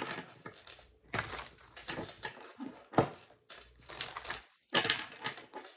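Tarot cards being shuffled and handled: a series of short papery bursts, with a sharp snap about three seconds in.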